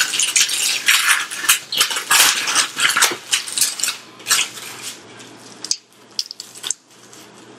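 Paper wrapper around a takeout naan bread crinkling in quick, irregular crackles as a piece is pulled out. Sparser, quieter crackles follow as the naan is torn in two.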